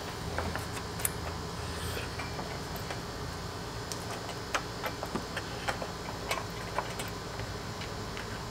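Light, irregular clicks and taps of plastic clips and trim being handled as a car's A/C condenser is fitted into its mounts, over a steady low hum.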